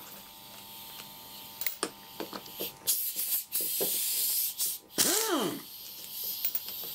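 Air impact wrench being run in short goes on the end-plate screws of a hydraulic steering valve: a few light clicks, then air hissing through the tool for a couple of seconds, and about five seconds in the motor spins up and winds down again.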